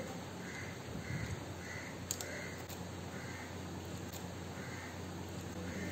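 Faint string of short bird calls in the background, about half a second to a second apart, over a low steady hum. A few light clicks as a plastic pry tool works the latch of a laptop keyboard's ribbon cable connector.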